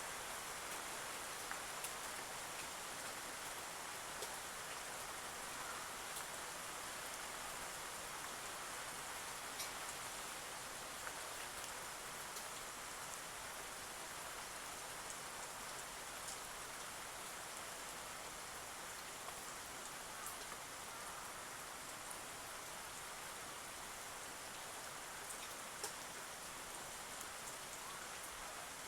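Steady patter of light rain, with a few faint ticks scattered through it.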